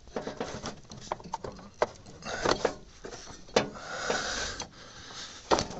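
Rubber drive belt being worked off a ride-on mower's deck pulleys by hand: irregular clicks, light knocks and rubbing scrapes, with three sharper clicks spread through.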